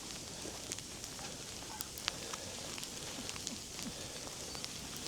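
Footsteps crunching and squeaking through 6 to 8 inches of fresh snow, with irregular light crackles over a steady soft hiss.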